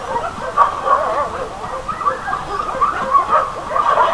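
Several puppies whining and yelping together: many short calls that rise and fall in pitch, overlapping one another.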